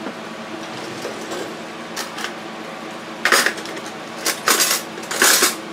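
Metal cutlery clinking and rattling in several short bursts, the loudest near the end, as a clean spoon is picked out.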